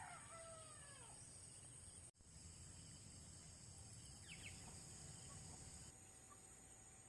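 The end of a rooster's crow, falling in pitch and dying out about a second in, over a steady high-pitched buzz of insects. A short bird chirp sounds about four seconds in, and the insect buzz drops away near the end.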